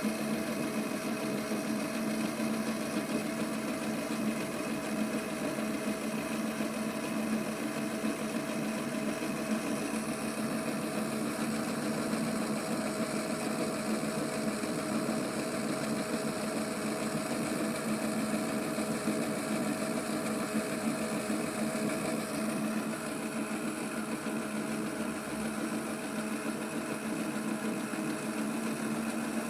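Small electric motor of a vintage Theo Klein toy Miele washing machine running steadily, turning the drum during a wash, with an even hum.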